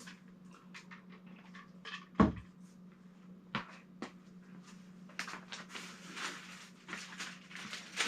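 Things being handled and set down on a work table: a loud thud about two seconds in, another knock a second and a half later, scattered clicks, then scraping and rustling in the last few seconds, over a steady low hum.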